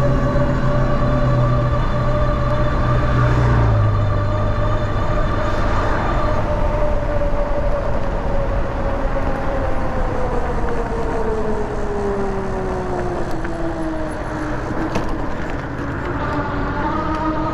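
Electric motor whine of an Ariel Rider Kepler e-bike under way. The whine holds steady, then its pitch falls over several seconds from about ten seconds in as the bike slows. A low rumble underneath eases after about four seconds.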